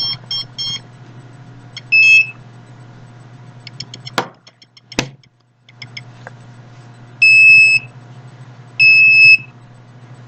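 Electronic meter beeping: a quick run of short beeps, then long steady beeps of one high pitch about a second and a half apart, over a steady low hum. Two sharp clicks come near the middle.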